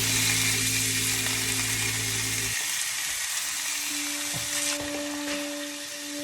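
Food sizzling steadily in a hot frying pan. Low background music notes stop about two and a half seconds in, and held tones come in a second later.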